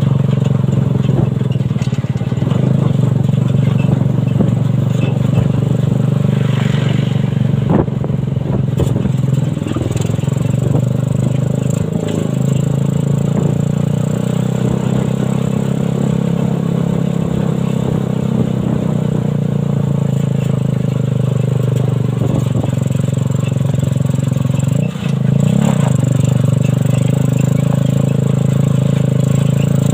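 Suzuki Satria FU 150 single-cylinder four-stroke motorcycle engine in a homemade buggy, running steadily under way. It drops off briefly about 25 seconds in, then the pitch climbs again.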